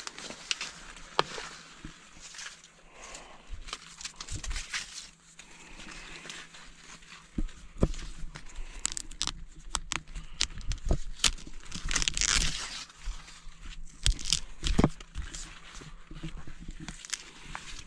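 Green corn leaves crackling, crinkling and tearing as a pulled corn whorl is picked apart by hand, with scattered sharp snaps.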